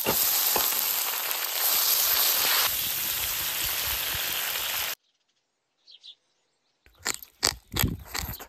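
Pork, scallions and garlic sprouts sizzling loudly in a hot wok as they are stir-fried, with a couple of spatula knocks near the start; the sizzle cuts off suddenly about five seconds in. After a short bird chirp, close-up chewing and crunching of the stir-fried greens and rice comes near the end.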